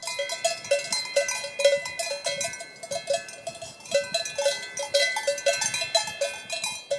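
Cowbell clanging irregularly, several strikes a second, each ringing with a metallic tone, with a short lull about halfway through: a bell on a grazing cow's neck swinging as it feeds.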